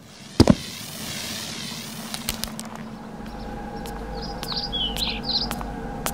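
Layered cartoon sound effects: a sharp crash about half a second in, then a high warbling siren-like wail, then a steady hum with scattered clicks and a few short bird chirps.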